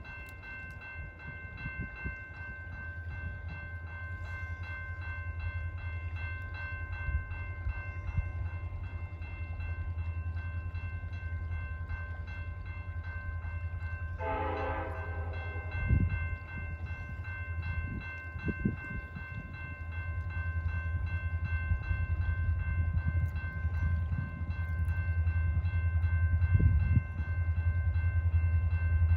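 CN freight train approaching behind a diesel locomotive: the engine's rumble grows louder while a bell rings steadily and rapidly throughout. About halfway through the locomotive gives one short horn blast, and there are a few low thumps.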